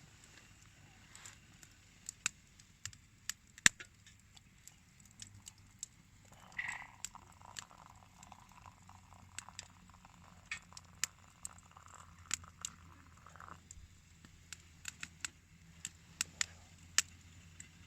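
Wood campfire crackling, with irregular sharp pops and snaps, and a faint hiss from about six seconds in to about thirteen seconds in.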